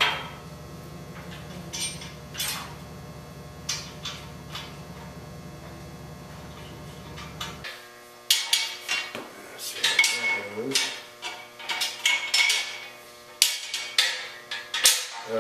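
Steel engine hoist parts clanking and clinking against each other as they are handled and fitted together, a run of sharp metallic knocks in the second half. Before that a steady low hum runs and cuts off suddenly about halfway through.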